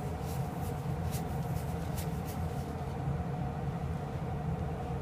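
A steady low hum, with a few faint soft rubbing strokes in the first couple of seconds as a rubber-gloved finger is wiped across the oily, rusty bottom of an iron weight.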